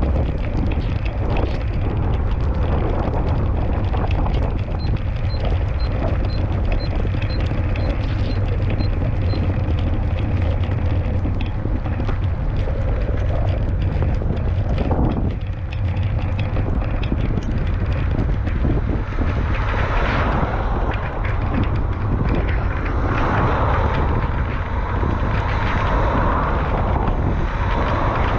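Wind buffeting the camera microphone in the rain: a constant low rumble with a spatter of small raindrop ticks. A louder hiss swells in from about twenty seconds in.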